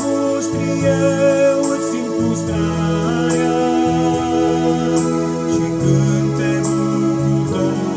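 Electronic keyboard playing sustained organ-like chords over a bass line, an instrumental passage of a worship song, with the chords changing every second or two.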